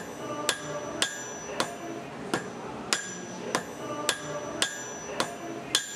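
Blacksmith's hammer striking metal on an anvil in a steady rhythm, about two ringing blows a second.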